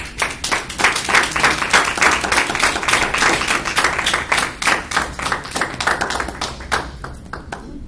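Small audience applauding, many hands clapping at once, thinning out near the end.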